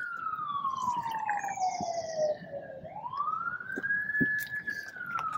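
Emergency vehicle siren wailing: its pitch falls slowly, rises again about three seconds in, holds high briefly, then starts to fall once more.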